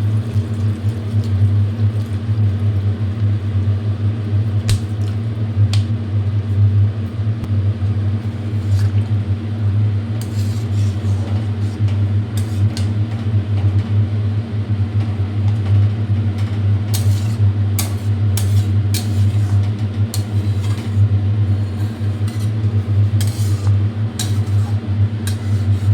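A steady low electrical hum, with scattered light clinks and scrapes of a spatula against the kadai, coming more often in the second half.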